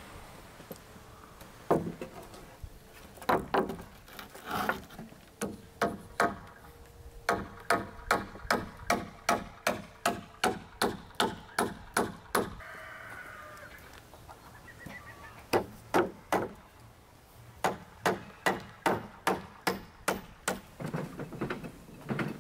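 Hammer nailing a board onto a wooden roof rafter. There are a few separate knocks, then a steady run of blows about two a second, a short pause, and a second run of blows.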